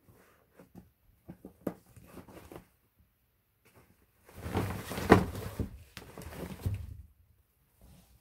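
A fabric pop-up cat tunnel rustling and scuffing as a cat paws and pushes at it while another cat lies inside. There are a few light taps and scrapes, then a louder stretch of rustling with a sharp knock, about four to seven seconds in.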